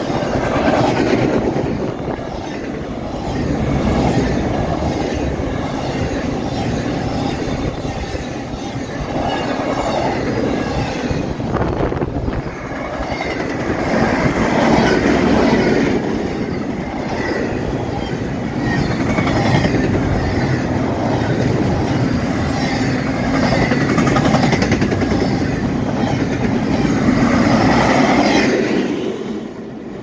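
Intermodal freight train's double-stack well cars and trailer platforms rolling past at about 60 mph: a continuous rumble and clatter of steel wheels on rail, swelling and easing every few seconds. It drops away near the end as the last car clears.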